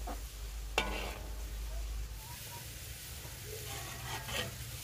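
Potato finger chips deep-frying in hot oil in a large karahi, a steady sizzle, while a metal skimmer stirs them: a sharp clink of metal on the pan about a second in and a few more scraping knocks near the end.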